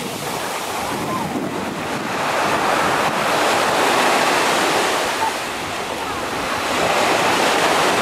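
Sea surf breaking and washing up a sandy beach, in two swells: the first builds to its loudest about four seconds in, and the next rises near the end.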